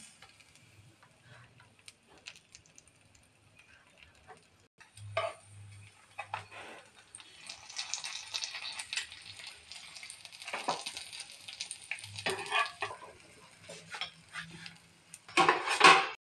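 A spatula scraping and knocking on a tawa pan as an egg roll is turned and rolled, with a sizzling hiss through the middle. A loud clatter near the end as the roll is moved onto a foil tray.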